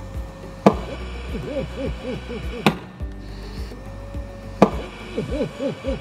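VOCSN ventilator running mechanical cough therapy (insufflation-exsufflation) through a face mask on its low cough setting. There is a sharp click about every two seconds as it cycles, and a warbling tone that rises and falls several times a second in between, over a steady low hum.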